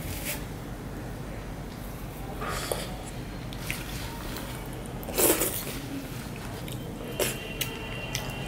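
Hand-eating sounds: fingers scraping and gathering leftover curry and rice on a banana leaf, with scattered short mouth and chewing noises and one louder sound about five seconds in.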